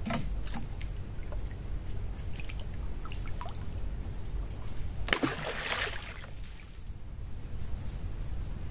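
Water splashing and dripping at the side of a small wooden boat as a caught fish is handled at the waterline. A few light knocks and drips come first, then a burst of splashing about five seconds in that lasts about a second.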